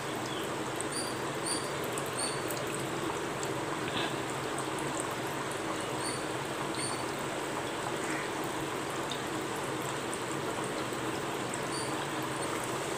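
Wheat-flour biscuit rounds deep-frying in hot oil: a steady, even sizzle of bubbling oil around the dough.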